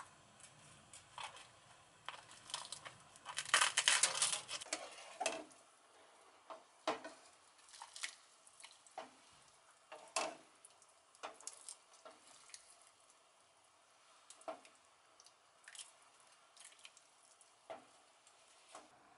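Kitchen scissors crunching through the charred edge of a grilled rice cake, a quick run of snips loudest a few seconds in. Then scattered clinks and small splashes as broth is ladled from the pot into soup bowls.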